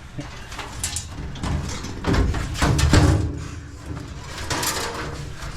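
Irregular knocks and scraping as a scavenged item is turned over and pushed into a car, loudest about two to three seconds in.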